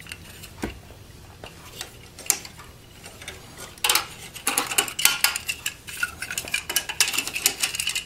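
Plastic graphics card bracket of a Dell Precision T3500 clicking and rattling against the metal chassis as it is pressed into its latching indents. A few scattered clicks at first, then a quick run of clicks and knocks in the second half.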